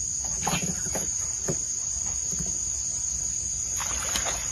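Steady high-pitched insect drone, with a hooked fish splashing and thrashing at the water's surface near the end.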